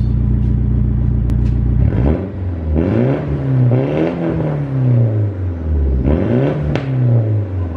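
Nissan 180SX's SR20 four-cylinder idling through a freshly fitted single 3-inch stainless steel exhaust, then revved twice: a longer rev that climbs and falls back starting about two seconds in, and a shorter one near the end.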